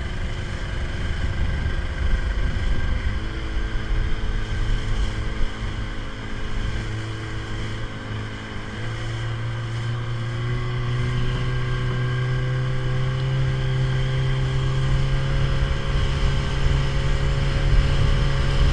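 Small motorboat's engine running under way, its pitch stepping up twice and then climbing slowly as the throttle opens, over a deep rumble.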